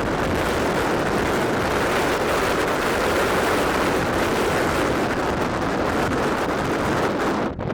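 Strong wind buffeting the microphone: a loud, steady rush of noise that dips briefly just before the end.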